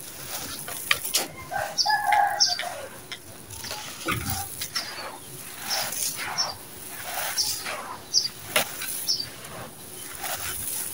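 Dry, gritty sand-cement with small stones being scooped and crumbled through the hands, a crunchy pouring and pattering as handfuls fall back onto the heap. Birds chirp repeatedly in the background.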